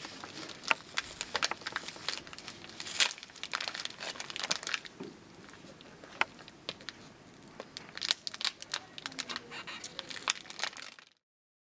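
Plastic packaging of a suction catheter crinkling and crackling in gloved hands as it is opened, with many irregular small crackles. It cuts off abruptly near the end.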